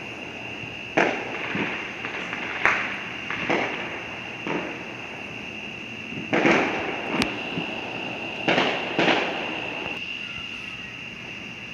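Fireworks going off around the neighbourhood: a string of about eight sharp bangs and booms with echoing tails, loudest around six to seven seconds in, over a steady high-pitched drone.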